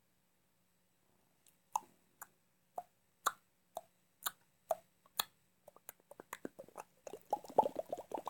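Quiet sharp clicks, about two a second, starting after a short silence and turning quicker and denser near the end.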